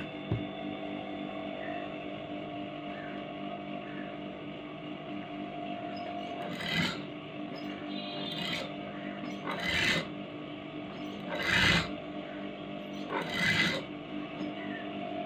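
Electric sewing machine running steadily, stitching a seam through lightweight cotton with lining. About five brief rustles of the cloth come in the second half.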